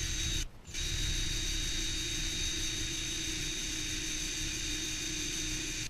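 Electric drill motor running at a steady speed while drilling holes through a metal strap and the chainsaw's plastic handle; it stops briefly about half a second in, starts again and runs evenly until it cuts off at the end.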